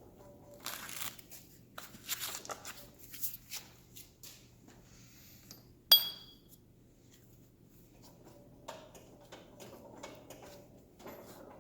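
Handling noise of kaizen foam being pulled out of a freshly burned cutout and a metal hand tool pressed into it, small rustles and scrapes. One sharp metallic clink rings briefly about six seconds in.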